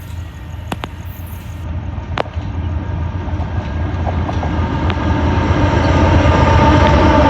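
A train approaching, its deep rumble growing steadily louder, with a few sharp clicks in the first couple of seconds.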